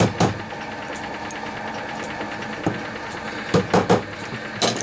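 A steady machine hum runs throughout, with about half a dozen sharp knocks over it: the strokes and clatter of soft copper plates being bent and worked around a metal former by hand.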